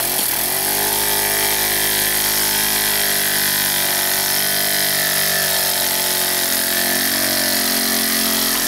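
Small live-steam model engine running, with a steady hiss of steam over a whirring hum that wavers slightly in pitch.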